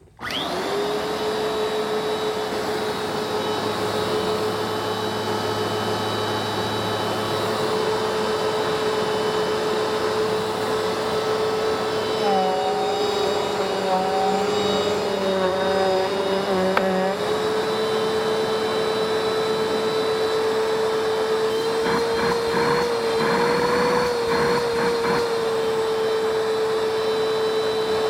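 Vacuum cleaner with a spinning brush roll switched on, its motor spinning up quickly to a steady whine and running. About twelve seconds in, the pitch dips slightly for a few seconds with extra tones, and near the end a brief rattle sounds over the motor.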